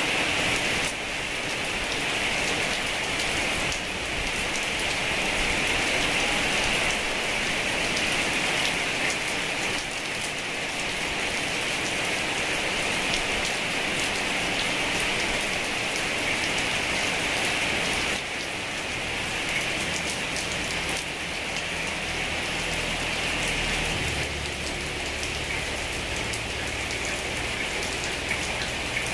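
Heavy rain falling steadily: a dense, even hiss of countless drops with fine individual drop ticks through it.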